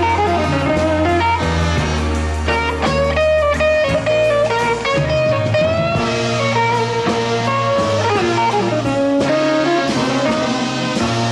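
Instrumental stretch of a blues-rock song: a lead guitar plays a melody with bent, sliding notes over bass and drums, with no singing.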